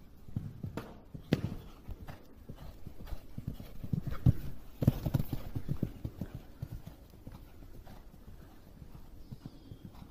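Grey pony's hooves thudding on a sand arena at canter, in a steady rhythm, loudest about the middle and fading near the end as the pony moves away.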